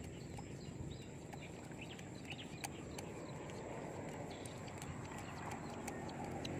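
Quiet outdoor ambience by a pond: a steady low background rumble with scattered small clicks and a few faint bird chirps.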